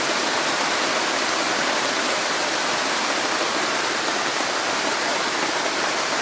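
Heavy rain falling steadily: a dense, even hiss of downpour with no let-up.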